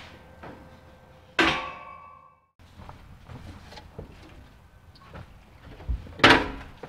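Two sharp knocks about five seconds apart, the first ringing briefly with a metallic tone, with faint clicks and handling knocks between them.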